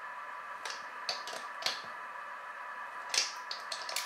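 A few short, irregular clicks in two small clusters from a hand socket driver tightening the wheel's clamping bolts.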